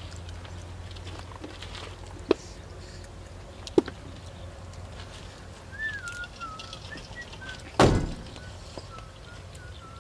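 Two crisp snaps as fresh vegetable stems are broken by hand, then a single dull thump about eight seconds in, the loudest sound. A bird's thin wavering whistle comes in from about six seconds on, over a steady low hum.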